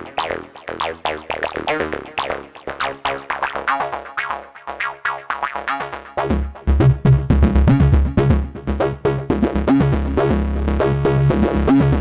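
Tone2 Saurus 3 software synthesizer playing an arpeggiated TB-303-style acid line from its "303 A MF" preset: a fast run of repeating notes, each with a bright filter snap that quickly dies away. About halfway through it turns louder, with heavy bass coming in.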